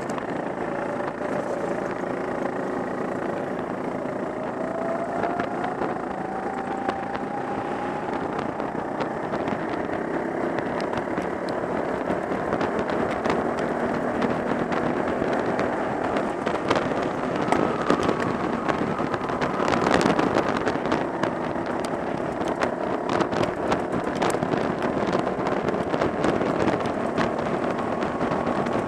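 Go-kart engine running hard at close range from on board, its pitch climbing and dropping as the throttle is worked through the corners, with other karts running close ahead.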